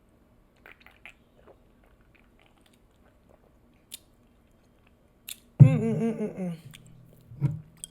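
A few faint small mouth clicks, then about five and a half seconds in a loud wordless vocal sound from a woman, about a second long with bending pitch, and a shorter one near the end.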